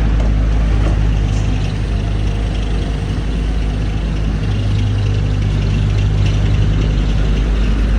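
Skid steer loader's diesel engine running steadily, a loud low hum that grows a little stronger about halfway through.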